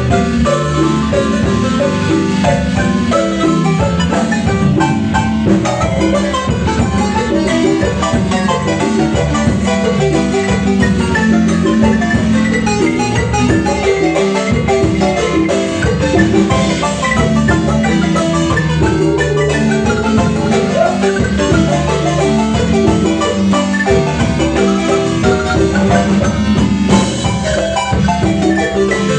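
Marimba ensemble playing a lively piece: fast, dense mallet notes over a steady bass line.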